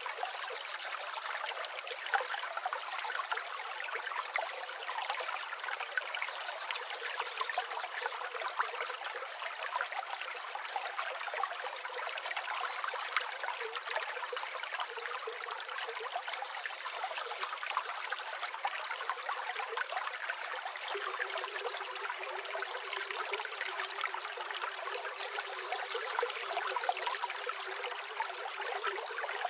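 Flowing river water, a steady trickling and babbling rush.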